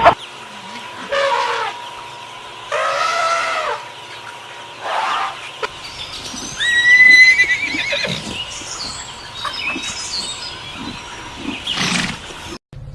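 Horse neighing: several separate calls, one a high whinny with a quavering, wavering pitch about seven seconds in.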